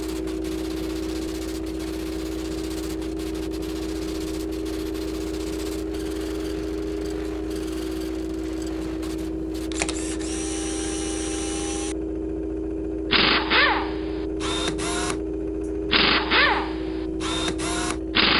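Steady electronic hum and hiss. From about ten seconds in come a series of short synthetic computer bleeps and warbling chirps that start and stop abruptly, some sweeping up and down in pitch.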